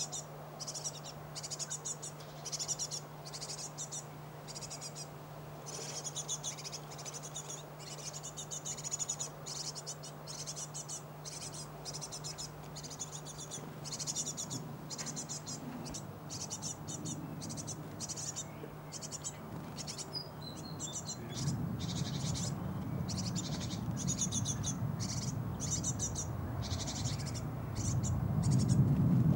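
Great tit nestlings begging inside a nest box: continuous rapid, high-pitched chirping that is signalling for food. Under it there is a steady low hum, and about two-thirds of the way through a louder low rumble comes in.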